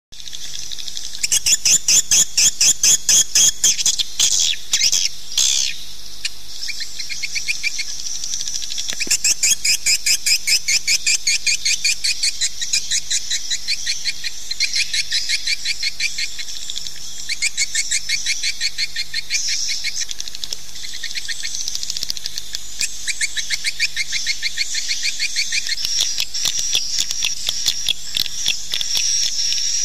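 Swiftlets calling: rapid trains of high, clicking chirps, repeating with short gaps throughout.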